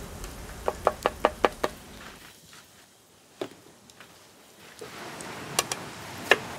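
Knife chopping food: a quick run of about six sharp chops about a second in, then a few single chops spaced a second or more apart.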